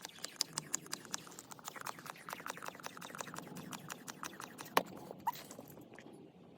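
Small hand pump inflating a football through a needle: a fast, regular run of small clicks as it is worked, with one louder click about three-quarters of the way through.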